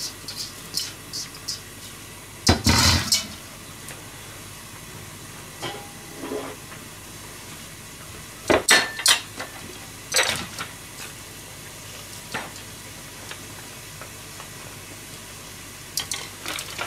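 Metal kitchen utensils knocking and scraping against an aluminium saucepan. A mesh strainer taps the rim as chopped vegetables go into the simmering pot, and a spoon later stirs it, with a louder clatter about three seconds in. A steady hiss runs underneath.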